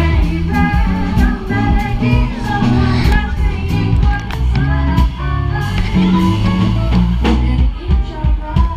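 Live band playing a song: a woman sings over guitar and a drum kit, with a heavy low end and regular cymbal and drum strokes.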